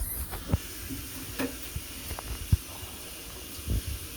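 Ground beef in sauce sizzling steadily in a pan on the stove as it simmers, with a few knocks and clatters from kitchen things, the loudest about two and a half seconds in.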